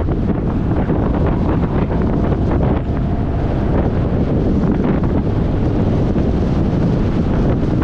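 Steady wind buffeting the microphone of a camera mounted on the hood of a moving vehicle, with the vehicle's road noise underneath.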